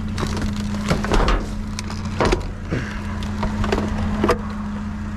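Scattered knocks and clatters of hard objects being handled and set down, over the steady hum of an idling vehicle engine.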